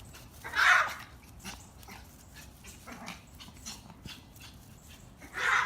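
A dog making two short, noisy sounds, one about half a second in and another near the end.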